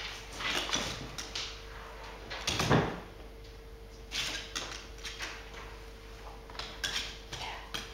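Scattered taps and knocks on a wooden parquet floor from a smooth collie moving between trick positions, its nails and body against the boards, with one heavier thump nearly three seconds in as it drops down.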